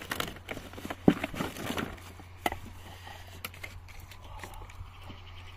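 Crucian carp being handled as the catch is laid out: irregular knocks, taps and rustling, busiest in the first two seconds, with a sharp knock about a second in.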